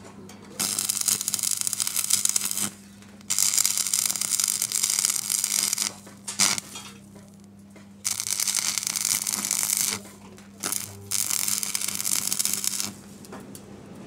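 Stick (arc) welding a steel door hinge to a steel frame: the electrode arc crackles and sizzles in four runs of about two seconds each, with a couple of brief strikes between them, as the weld is laid in short passes. A steady low electrical hum sits underneath throughout.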